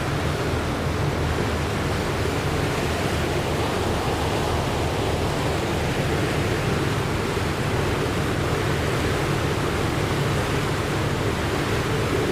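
Ferry underway: a steady low engine drone under the even rush of water along the hull.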